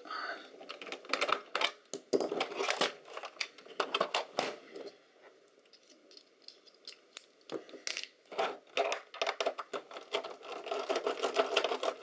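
Torx screws being turned out of a plastic docking-station base with a precision screwdriver, giving a weird run of clicking and creaking as they turn. The clicks come in clusters, with a quieter gap in the middle.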